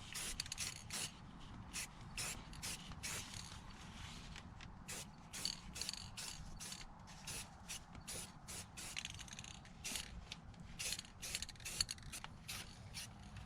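Aerosol spray can of Rust-Oleum Mexican chrome paint hissing in many short, quick spurts, about two a second, as a wheel is painted.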